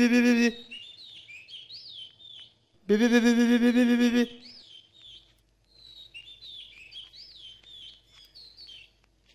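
Small birds chirping and twittering. Twice, at the start and again about three seconds in, a loud, long, wavering call breaks in, each lasting a little over a second.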